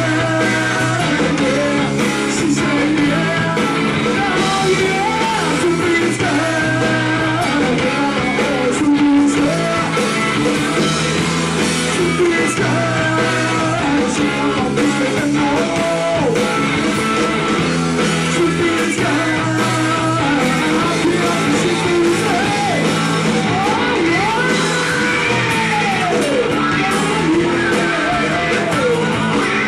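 Rock band playing live: electric guitars over bass and drums with cymbals, and a lead vocal line on top.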